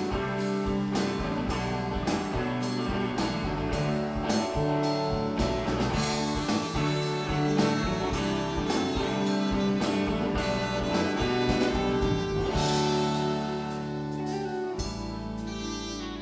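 Live rock band playing an instrumental passage with no singing: electric guitars and bass over a steady drum-kit beat, the drums thinning out near the end under a held low note.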